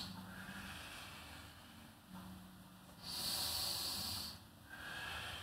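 A woman breathing audibly while rolling her head through a neck stretch: soft breaths, then one strong hissing exhale about three seconds in that lasts about a second.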